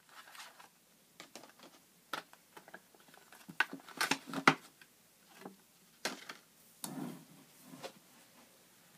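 A thin plastic blister pack being handled and opened by hand: irregular clicks, crackles and taps of plastic, busiest about four seconds in.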